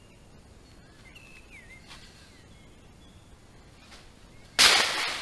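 Birds chirping faintly, then, about four and a half seconds in, one sudden, very loud AR-15 rifle shot that rings off and fades over about half a second.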